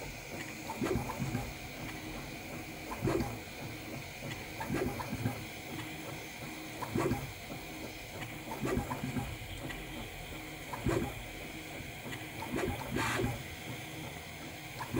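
Prusa Mini 3D printer running a print: a steady fan hum under short whirring surges from the stepper motors as the print head moves, about every two seconds.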